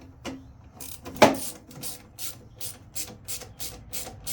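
Ratchet wrench clicking in quick, even strokes, about three clicks a second, with one sharp knock about a second in. It is turning the fasteners while the truck's blower motor is being removed.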